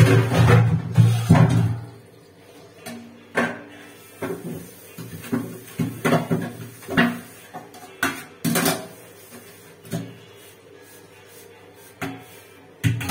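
Stainless-steel dishes and pots clanking and knocking against each other and the sink as they are washed and set down, in irregular sharp knocks.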